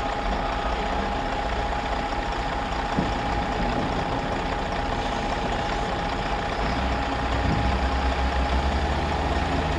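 Heavy vehicle engine running steadily, a constant whine over a low rumble that grows a little heavier near the end.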